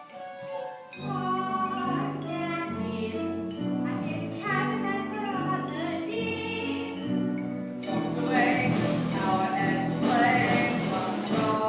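Stage-musical music: voices singing together over a live band. About eight seconds in it turns fuller, with percussion added.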